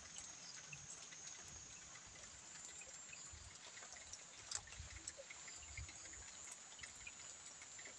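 Near silence: faint background ambience with a thin steady high-pitched tone and scattered soft ticks and low thumps.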